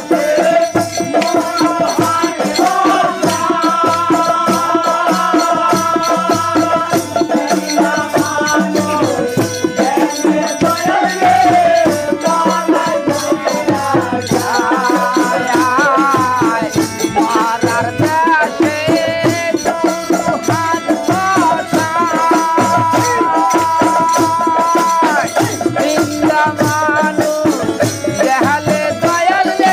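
Live Bengali folk music: a harmonium playing sustained chords and melody over a steady beat from a laced barrel drum and a jingling tambourine, with a melody line that bends in pitch in places.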